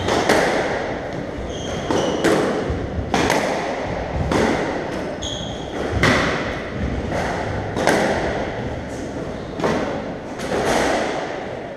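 Squash rally: the ball cracking off racquets and the front and side walls about once a second, each impact echoing round the enclosed court, with a couple of short shoe squeaks on the wooden floor.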